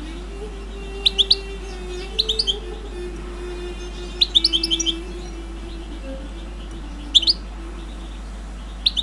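Caged songbird chirping in short bursts of quick high notes, five clusters a second or two apart. A faint, low, slowly shifting tune runs underneath.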